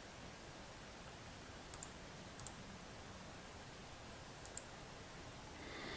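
A few faint computer mouse clicks over a low steady hiss: a quick pair and a single click around two seconds in, and another pair about four and a half seconds in.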